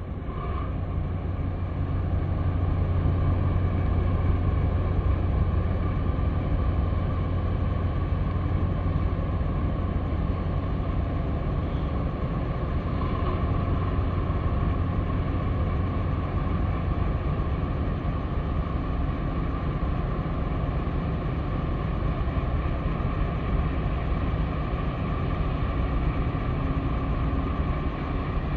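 Steady low diesel rumble from ship engines, the harbour tug working alongside the container ship, swelling over the first few seconds and then holding steady with a faint whine above it.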